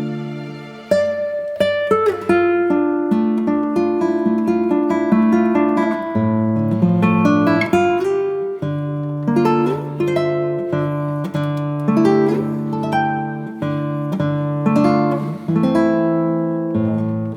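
Background music: an acoustic guitar picking a melody of plucked notes over held bass notes.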